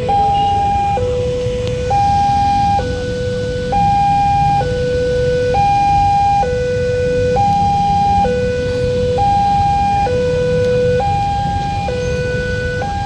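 Railway level-crossing warning siren sounding a two-tone hi-lo wail, switching between a higher and a lower note just under once a second, over a steady low rumble.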